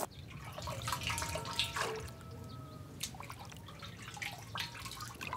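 Soy sauce being ladled from an earthenware jar into a stainless steel bowl: splashing and dripping liquid, with light knocks of the ladle that ring briefly on the bowl.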